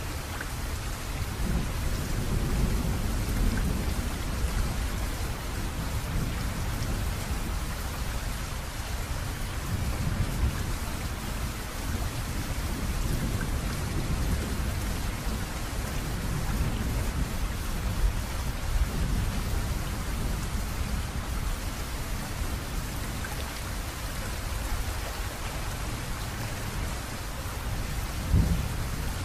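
Steady rain with low thunder rumbling underneath, swelling and fading.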